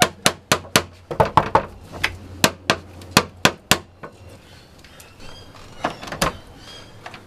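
Metal door knocker hammered against a wooden front door: about a dozen rapid, urgent knocks in under four seconds. Two more knocks follow about six seconds in.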